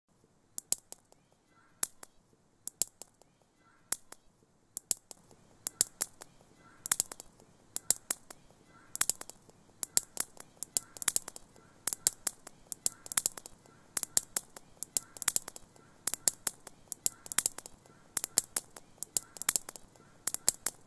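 Sharp, crisp clicks and snaps, a few at a time at first, then coming faster and louder, with a faint short tone repeating about once a second beneath them.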